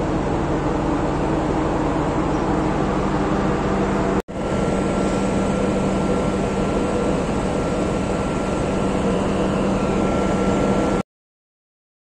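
Steady machinery hum on board a container ship, with a rushing noise over it. The sound breaks off for an instant about four seconds in, carries on with a thin steady whine added, and stops abruptly near the end.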